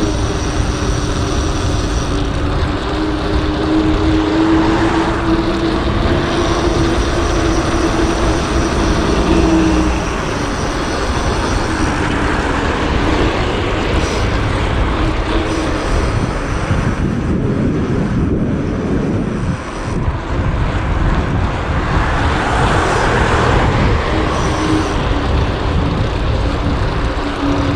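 Wind rushing over the camera microphone while cycling, with road traffic running underneath and a steady engine hum that comes and goes.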